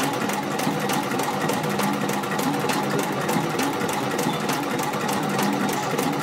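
HIGHTEX 204 102 MD heavy-duty decorative-stitch sewing machine stitching leather at a steady speed. Its motor hum runs under a fast, even clatter of needle strokes.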